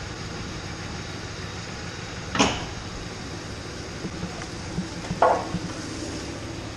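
Two sharp metal clunks, about three seconds apart, with a few lighter knocks between them, as the snow plow blade shifts on its front receiver-hitch swivel mount. A steady low hum runs underneath.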